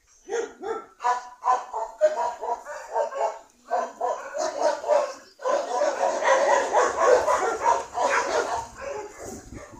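A dog barking and yelping over and over in quick succession, the barks running together into a near-continuous stretch from about halfway through.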